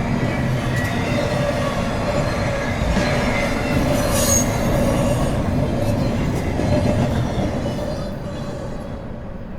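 Lego train running along its track with a steady, busy rattling and whirring, a brief high-pitched sound about four seconds in, fading over the last couple of seconds.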